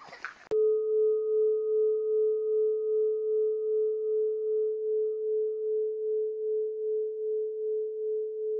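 A large hanging metal temple bell is struck once about half a second in, then rings on one steady pitch with a gentle pulsing waver, slowly fading. A fainter higher overtone dies away after about six seconds.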